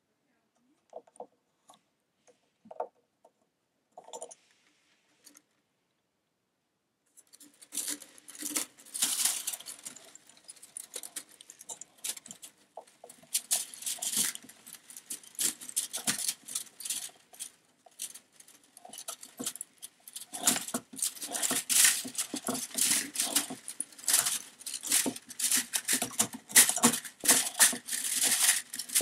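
Hands handling the filament feeder of an Ultimaker Original Plus 3D printer: clicks and rattles of fingers on the feeder clamp as filament is pushed through. A few sparse clicks at first, then about a quarter of the way in the rattling turns dense and runs on without a break.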